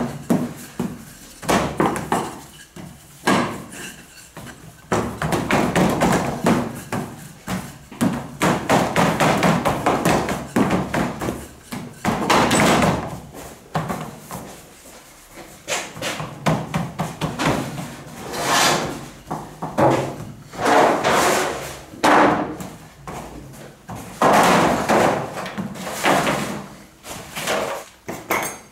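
Wooden rolling pins rolling and knocking on a floured steel bakery worktable, with repeated thuds as dough and pins are set down.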